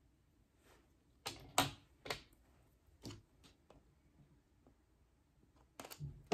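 Irregular sharp clicks and taps of hair tools, such as a comb, being handled and put down. They are loudest about a second and a half in and again near the end.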